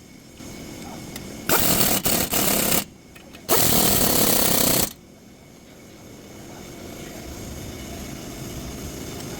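Power tool, most likely an impact wrench, run in two bursts of just over a second each, followed by a quieter steady hum.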